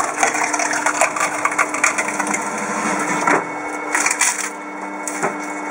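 Wood cracking and splintering under a powered wood-processing machine, over a steady motor hum. The cracking is dense at first and thins to a few separate cracks after about three seconds.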